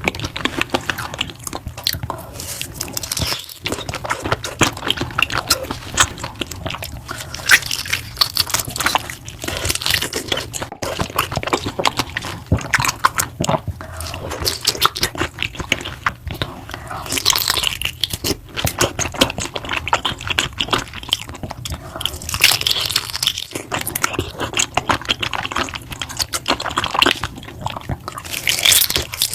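Close-miked eating: big bites of food with loud crunching and chewing, a dense run of crackles and mouth noises.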